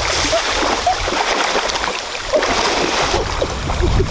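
Continuous splashing and sloshing of shallow muddy water as a person wades through it.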